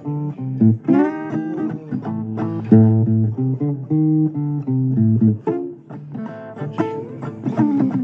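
Blues guitar instrumental break: a run of plucked notes over sustained low bass notes, with bent notes sliding in pitch about a second in and again near the end.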